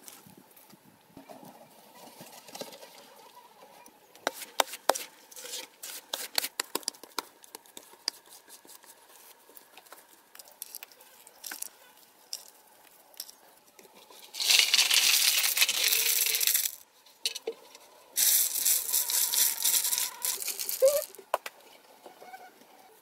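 Hand stone-and-mortar work: a run of sharp clicks and knocks of stone, then two long bursts of harsh scraping, one about two seconds and one about three seconds long.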